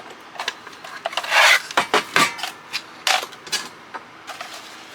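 Handling noises from a CB radio being moved about on a work surface: several short scrapes and rubs, the longest about a second in, with clicks and knocks between them.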